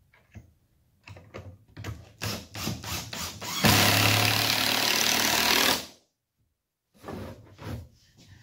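DeWalt cordless impact driver driving a screw into a cedar slab: a few short taps on the trigger, then about two seconds of loud continuous hammering that stops abruptly.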